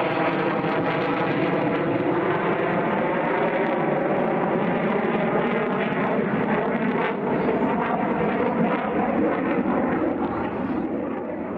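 F-16 Viper fighter jet's engine running loud and steady as it flies its display, with a slow sweeping, phasing shift in its tone; it begins to fade near the end.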